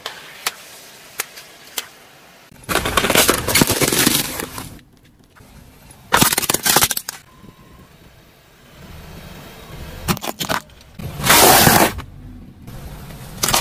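A car tyre rolling over and crushing things on asphalt: first a row of long water-filled balloons popping and splashing, then plastic toys cracking, then a foil tray of pasta crunching. A few sharp clicks come first, then several separate loud crackling, breaking bursts.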